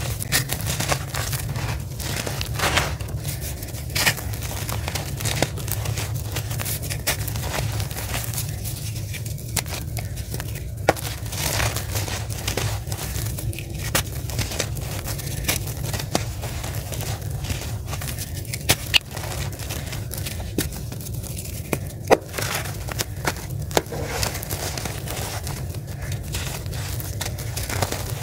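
A dry, gritty clod crushed and crumbled between bare hands: continuous crunching and crackling with many sharp snaps as pieces break off, and grit pouring onto the dusty floor. A steady low hum runs underneath.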